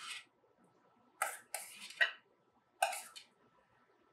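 A utensil scraping guacamole out of a stainless steel mixing bowl into a small bowl: about five short metallic scrapes and clinks against the steel, with pauses between them.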